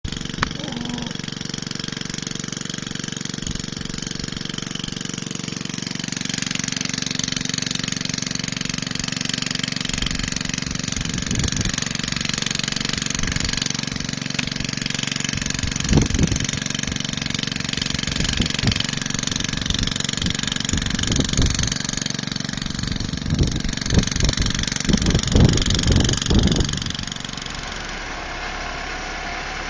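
Caterpillar 416C backhoe's turbo diesel running steadily, picking up and working harder after a few seconds, with irregular heavy thumps and knocks through the middle stretch. Near the end the engine drops back to a lower, quieter idle.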